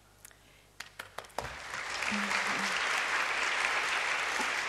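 Audience applauding: a few scattered claps at first, then full, steady applause from about a second and a half in.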